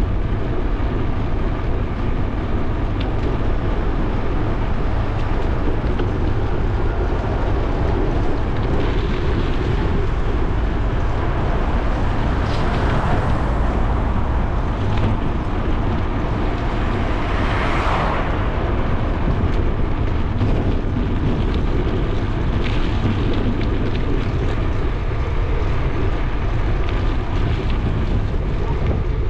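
Steady low wind rumble on the microphone while cycling along a city street, with traffic noise. Two vehicles pass, the second one louder.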